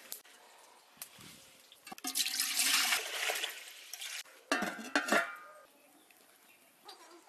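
Water poured into an aluminium cooking pot, a rushing splash for about a second and a half, followed a second later by a few metal clanks of the pot with a brief ring.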